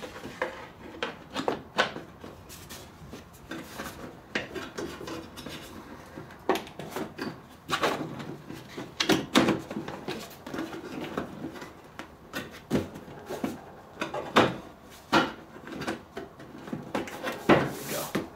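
Hard plastic backrest cover of a Ski-Doo 1+1 seat being handled and pressed onto the backrest: irregular knocks, clicks and rubbing of plastic on plastic, with a few louder knocks.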